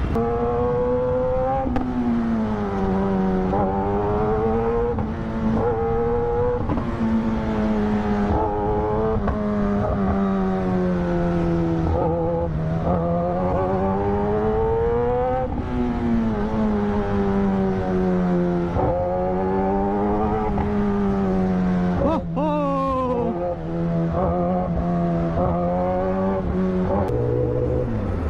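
Kawasaki ZX-10R's inline-four engine running under way at cruising revs, its note swelling up and down several times with the throttle and dropping lower near the end, over steady wind rush.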